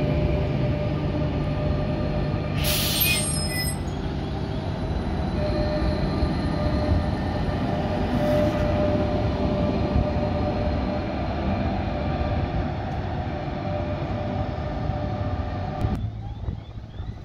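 Tram rolling past close by with a steady rumble of steel wheels on the rails, and a short high-pitched screech of wheel squeal about three seconds in. Near the end the sound falls away to much quieter street noise.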